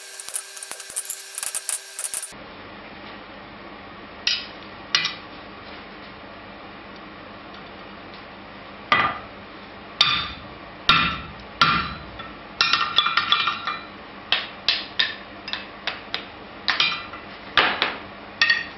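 Hand hammer striking a punch driven into glowing hot steel on an anvil, opening the hole of a nail header: sharp ringing metal blows, some single and about a second apart, with a quick flurry of lighter taps in the middle. The opening two seconds hold a fast rapid-fire run of metal strikes that cuts off abruptly.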